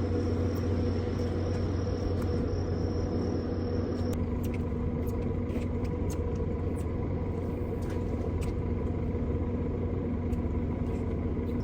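Boat engine idling with a steady low hum. A thin high whine over it stops about four seconds in, and a few light clicks follow.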